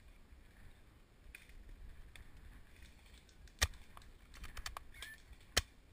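Airsoft gun shots: two sharp snaps about two seconds apart, the second near the end, with a run of lighter clicks between them.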